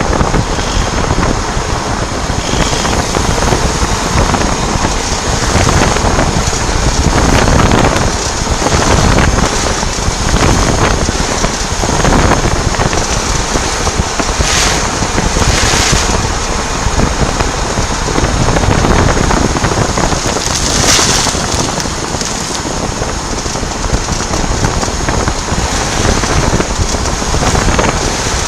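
VW Passat B8 driving slowly, a fast ticking from its drivetrain heard through loud road and wind noise: the sign of a worn outer CV joint on the driveshaft.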